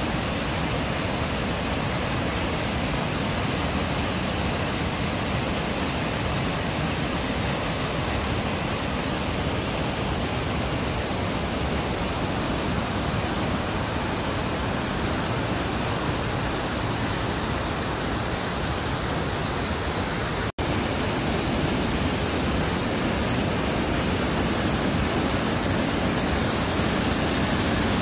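Fast mountain creek rushing over rocks and pouring over a concrete weir: a steady, even roar of white water. It breaks off for an instant about two-thirds of the way through and comes back slightly louder.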